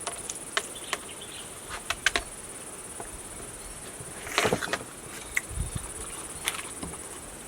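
Steady high-pitched trill of insects, with scattered short clicks and a louder brief noise about four and a half seconds in.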